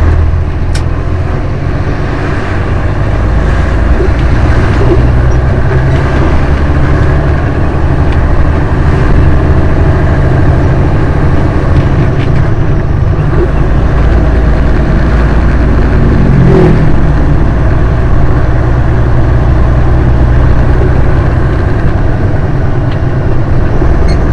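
Western Star truck's Detroit Diesel engine running under load, heard from inside the cab, with road noise. The engine note shifts up and down a few times as the truck is driven through the gears.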